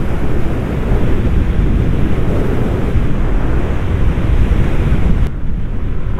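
Wind buffeting the microphone of a rider on a moving motorcycle: a loud, even rumble that masks the engine. About five seconds in, the higher hiss drops away suddenly while the low rumble carries on.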